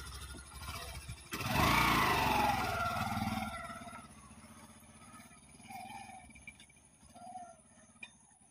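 Yamaha commuter motorcycle engine revving up as the bike pulls away, about a second and a half in, then fading as it rides off down a dirt track.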